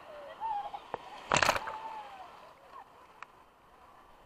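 A sudden, loud splash of water right at the microphone about a second and a half in, lasting a fraction of a second, over wave-pool water sloshing and the scattered voices of people in the pool.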